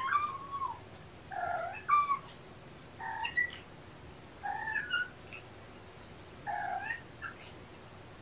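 An 8–9-week-old tortoiseshell kitten meowing over and over, about five calls, one every second and a half or so.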